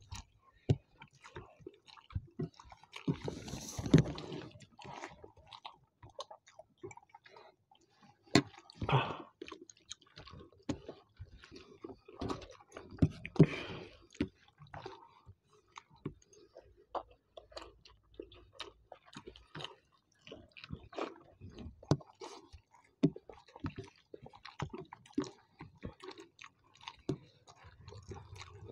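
Close-up eating sounds of two people eating egg curry and rice by hand: chewing and lip smacking, with wet squishing as the curry-soaked rice is mixed and scooped with the fingers. It comes as a steady run of small clicks and smacks, with a few louder bursts.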